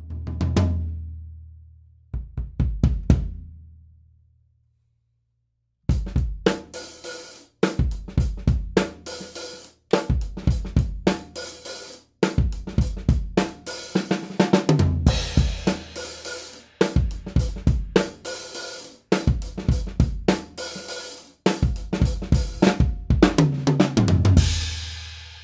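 Acoustic drum kit (Fibes toms and bass drum, birch snare, Zildjian hi-hats and ride) played with sticks, recorded through a Yamaha EAD10 with clip-on condenser tom mics and overhead mics. Two short fills ring out and are followed by a brief silence. Then comes a groove in short phrases with sharp stops, ending on a cymbal crash that rings out.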